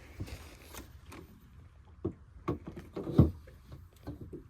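A few scattered knocks and clunks of fishing gear being handled in a boat, the loudest about three seconds in.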